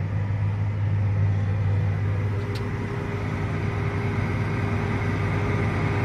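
Farm tractor's engine running steadily while pulling a grain drill, heard from inside the cab: a constant low drone with a faint higher tone above it.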